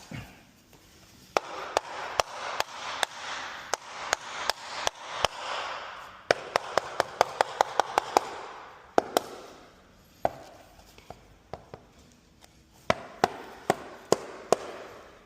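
Repeated sharp taps and knocks over a rubbing, scraping noise during work on luxury vinyl plank flooring. The taps come quickly, several a second, about six to eight seconds in, then thin out to a few scattered knocks.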